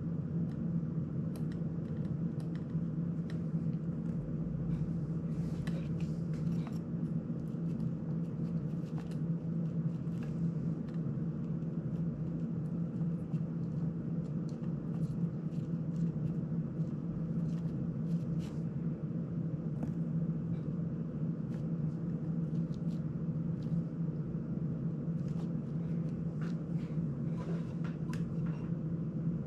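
Scattered light clicks and taps of small FPV drone parts and screws being handled on a workbench, over a steady low hum.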